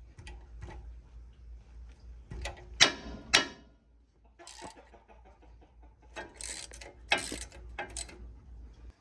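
Ratchet clicking in short runs, with metal tool clinks, as a 7 mm hex socket loosens the rear brake caliper bolts.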